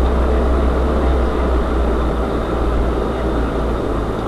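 UAZ-3909 'Bukhanka' 4x4 van driving off-road: a steady, loud engine drone with road and body noise. The engine note shifts near the end.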